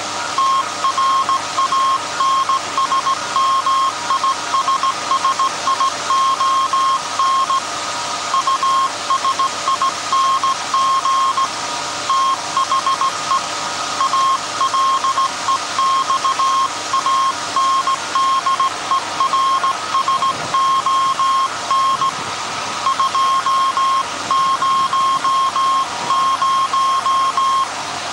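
Morse code sent on a hand key, heard as a tone near 1 kHz beeping on and off in dots and dashes, with longer breaks about 12 and 22 seconds in. Underneath runs the steady hum of the 1924 Alexanderson alternator transmitting on 17.2 kHz.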